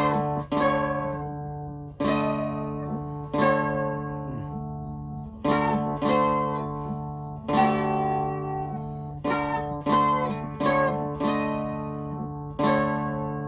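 Olivia box dulcimer, fretted with a 15-inch scale and a doubled melody string, played through an amplifier in a slow hymn tune. Strums land about once a second, each ringing and fading, over a steady low drone.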